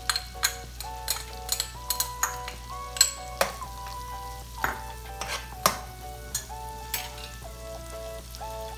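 Metal spatula stirring and scraping in a frying pan, with irregular clicks and taps against the pan, as ginger-garlic paste is mixed into tomatoes frying in butter with a light sizzle. A background music melody plays throughout.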